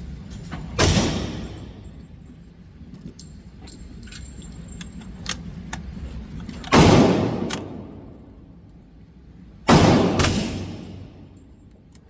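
Four gunshots, each with a ringing tail that dies away over about a second: one about a second in, one past the middle, then two about half a second apart near the end. Small clicks and taps between the shots.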